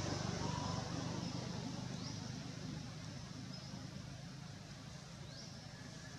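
A low engine rumble fading away as a vehicle moves off, with birds calling over it: a short whistled note about half a second in and brief rising chirps around two and five seconds in, over a steady high hiss.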